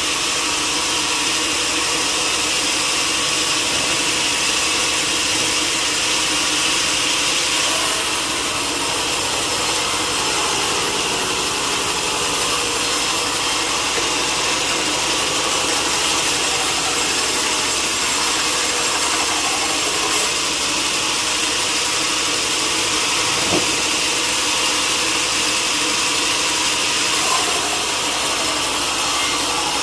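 Sawmill saw running steadily while cutting through a log, with a continuous high hiss and a low machine hum underneath.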